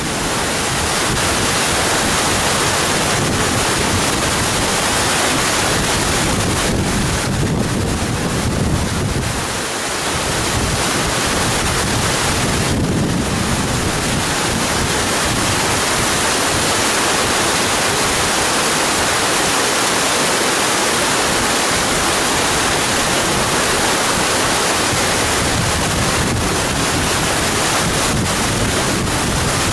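Gusty wind buffeting the microphone over the steady rushing noise of a Boeing 777-300 rolling down the runway after landing, with no clear engine whine standing out.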